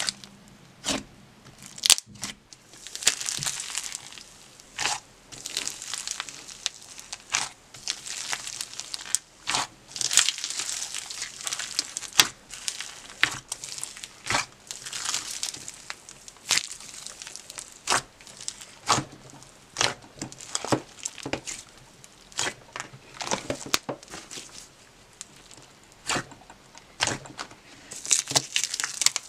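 Hands squishing and pressing thick slime studded with foam beads: many sharp pops and clicks from trapped air, with stretches of crinkly crackling as the slime is pressed and folded.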